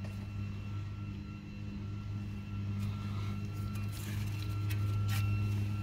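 A steady low hum with a few faint steady higher tones, and a few faint handling ticks near the middle.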